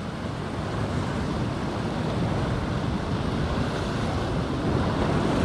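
Steady rush of sea surf, with wind on the microphone.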